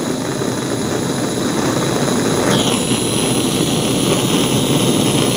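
Propane torch flame burning steadily against a steel disc, a loud, even rushing noise. About halfway through, a higher hiss joins in and holds.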